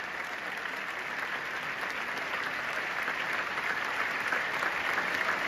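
A large opera-house audience applauding during a curtain call, a dense steady clapping that builds gradually louder.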